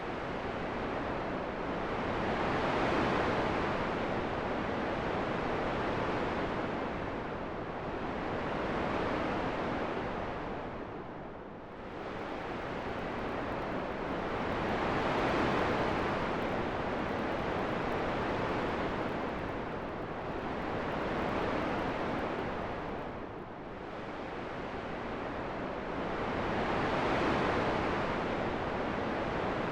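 Rushing wind noise that swells and fades in slow, smooth gusts, one about every six seconds, with deeper lulls about every twelve.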